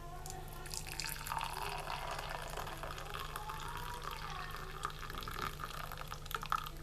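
Freshly boiled ginger water being poured from a saucepan into a glass, a steady pour that starts about a second in and stops near the end.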